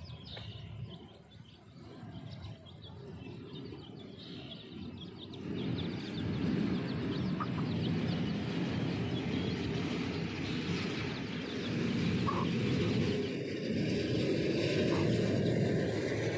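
Chicks peeping in short, high notes. About five seconds in, a steady rushing noise comes up and stays louder than the peeps.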